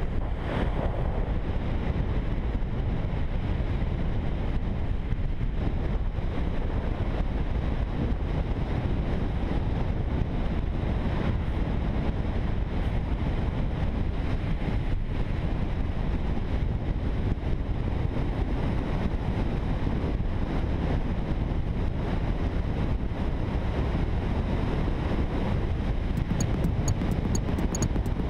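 Steady wind rush buffeting the microphone of a camera on a road bike descending a mountain road at speed, a continuous low rumble.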